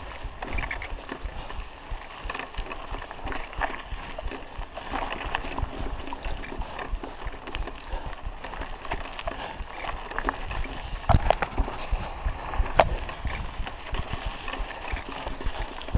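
Raleigh Ascent mountain bike clattering and rattling over a rough dirt track, its tyres crunching on loose grit, with a couple of sharper knocks about eleven and thirteen seconds in.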